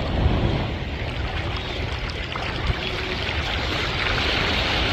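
Wind buffeting the microphone over small sea waves washing around a wader's legs in the shallows, a steady rough rush with no distinct events, growing a little louder near the end.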